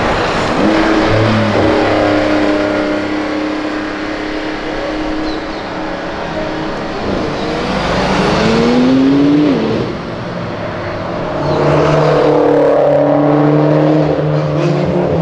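Porsche 911 Turbo's twin-turbo flat-six accelerating away, its pitch rising and then breaking off at a gear change about halfway through. In the second half a Mitsubishi Lancer Evolution X pulls away with its own engine note.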